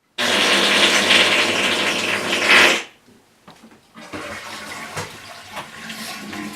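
Toilet flushing, a loud rush of water that cuts off suddenly after about two and a half seconds, followed by fainter noise with a few light knocks.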